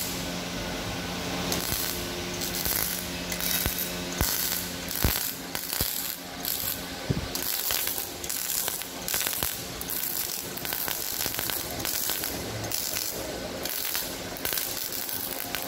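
Electric arc welding on steel: the arc crackling and hissing in short runs that start and stop, over a steady electrical hum. A few sharp metallic clinks and knocks stand out, the loudest about five and seven seconds in.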